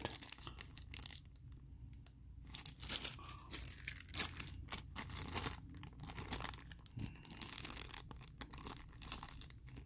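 Thin clear plastic bags crinkling and rustling as they are handled, in short irregular crackles with a brief lull about a second in.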